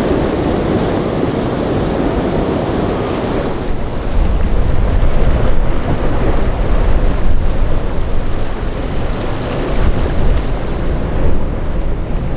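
Wind and surf: waves breaking in rough water, with wind buffeting the microphone. About four seconds in, the low wind rumble grows louder and gusty.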